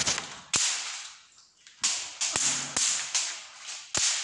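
Electric fly-swatter racket zapping flies: about eight sharp snapping cracks at irregular intervals, each trailing off in a brief hissing sizzle as a fly is burnt on the charged mesh.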